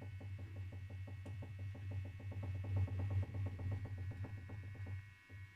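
Rapid run of light knocks from a worn rear-suspension bushing on an Opel Astra J as the part is rocked back and forth by hand; it stops about five seconds in. This play is the cause of the rear-suspension knock, and the bushings are due for replacement.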